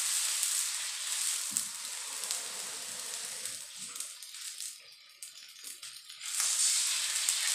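Water poured into a hot wok of sautéed pork, garlic and onion, sizzling loudly and hissing as it boils on contact, the sizzle dying down over the first few seconds. About six seconds in a second cupful goes in and the sizzle flares up again.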